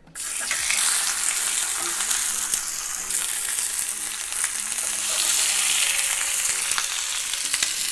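Salmon pieces searing in hot olive oil in a cast-iron pan: a loud, steady sizzle that starts suddenly as the fish goes in, with scattered small pops.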